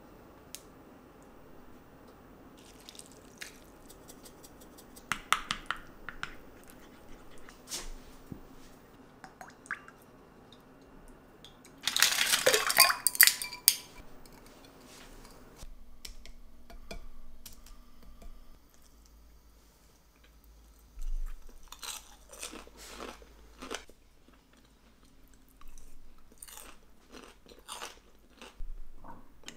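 Kitchen prep sounds at a small ceramic sauce bowl, with a loud burst of rapid clinking and clattering about halfway through. Then crisp bites and chewing of crispy smashed potatoes, close to the microphone.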